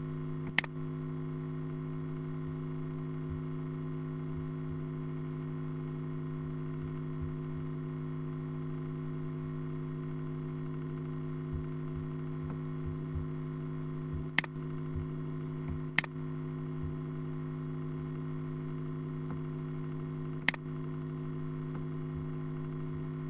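Steady low electrical hum, with four sharp computer mouse clicks: one just after the start, two about a second and a half apart in the middle, and one a few seconds before the end.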